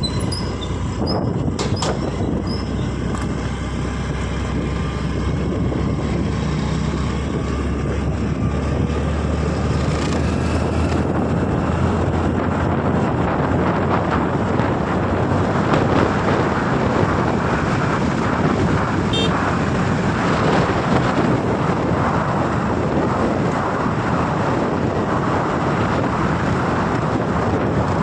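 Honda Activa scooter ridden along a road: the steady hum of its engine mixed with wind and road noise on the camera microphone, growing a little fuller and louder about a third of the way through.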